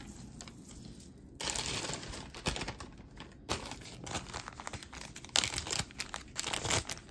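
Packaging crinkling and rustling by hand in several bursts, with a sharp click about two and a half seconds in.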